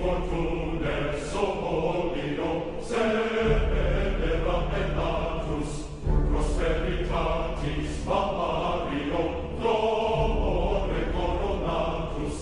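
Background music: a choir chanting in phrases a few seconds long over a deep low drone.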